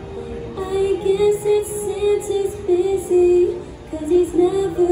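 A woman singing a Christmas carol solo into a microphone, holding notes and stepping between them in a smooth melody.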